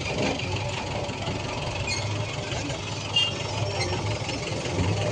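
Heavy-vehicle engine running steadily at low revs with a low rumble, and a short sharp click about three seconds in.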